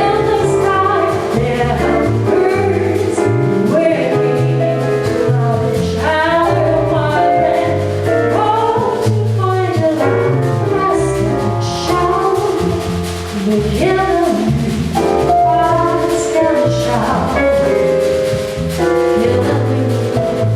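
A woman singing a jazz/bossa nova song over piano chords and a walking bass line.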